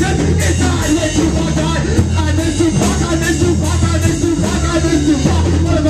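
Live rock band playing loud: drums keeping a steady beat under bass and electric guitar, with a singer's voice.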